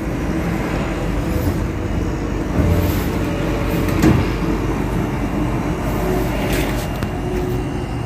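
Newly fitted Panasonic hermetic freezer compressor running with a steady hum, freshly charged with R134a refrigerant and drawing about 1.7 amps against its 1.8-amp rating.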